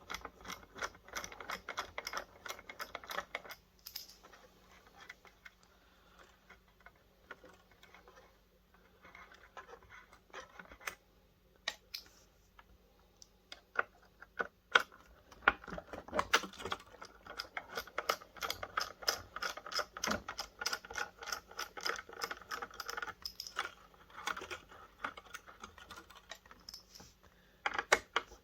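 Small screws being undone from the inside of a video projector: runs of rapid clicking from a hand screwdriver, with scattered light taps of small metal parts, in two long stretches with quieter pauses between.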